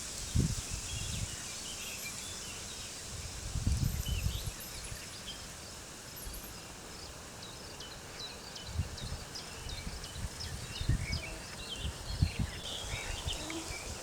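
Small birds chirping and twittering over a steady wind, with low rumbling gusts about four seconds in and again during the last few seconds.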